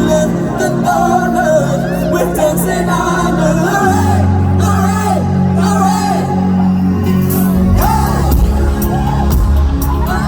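Live pop band playing, with a sung melody over held bass notes that change twice, and scattered shouts from the audience.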